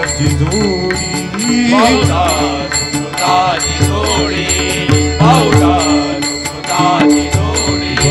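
Live Marathi bhajan music: a male voice sings a sliding, ornamented melodic line over held harmonium notes, with pakhawaj and hand drums keeping a steady beat.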